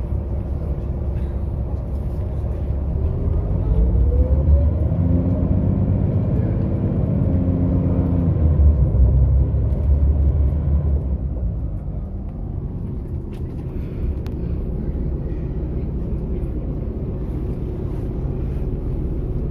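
Low, steady rumble of road vehicle engines. About three seconds in, one engine's note rises and grows louder, then fades away by about eleven seconds, as a vehicle goes by.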